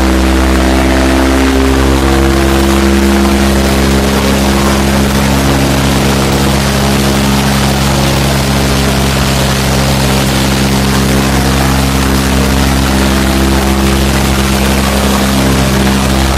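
Farmtrac 60 tractor's three-cylinder diesel engine running loud and steady at high revs under heavy load, its rear wheels digging into soft ploughed soil.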